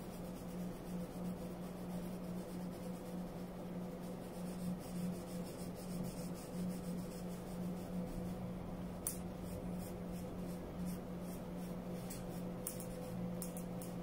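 Paintbrush stroking and dabbing paint onto a small ball, soft scratchy strokes that come more often in the second half, over a steady low hum.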